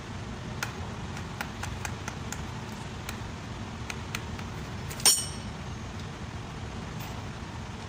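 A screwdriver picking at the lock in the centre of a truck's front wheel hub, making light metal clicks, over a steady low hum. About five seconds in comes a single loud metallic clank with a brief ring.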